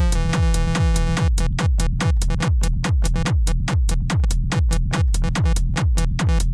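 Techno loop from a drum machine and synthesizer: a steady four-on-the-floor kick with a falling pitch, about two a second, with a 909 closed hi-hat ticking between the kicks. Over it a synth note rings on for about the first second, then turns into short clipped notes as its envelope is lowered.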